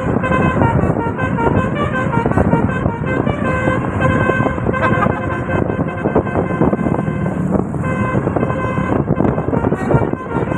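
Tour bus's Basuri telolet horn playing a melody of held notes that change in steps, over a constant low rumble.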